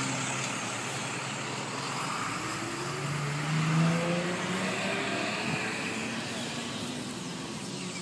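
Road traffic passing, with one vehicle's engine rising in pitch as it accelerates about three to four seconds in.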